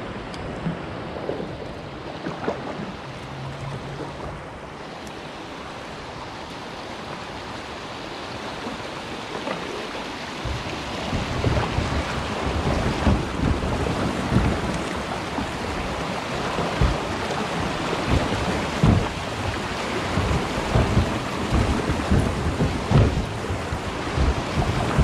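Fast whitewater rushing through a narrow concrete kayak chute, quieter at first and growing louder about ten seconds in as the kayak rides down the chute, with many short low thumps over the steady rush.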